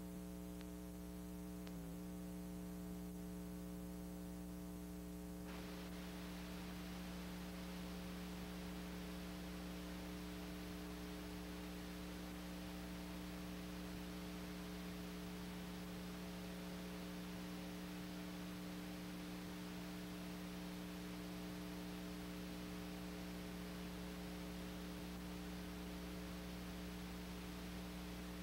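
Steady electrical mains hum with several overtones under tape hiss on a VHS tape's silent leader, the hiss growing louder about five seconds in.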